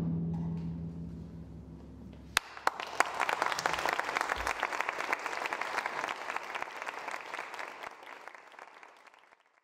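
The percussion ensemble's final low note ringing and dying away, then audience applause breaking out about two and a half seconds in and fading out near the end.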